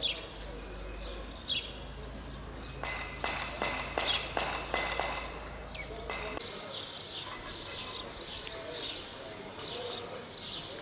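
Small birds chirping repeatedly in outdoor street ambience. About three seconds in comes a quick run of roughly eight sharp taps, about three a second.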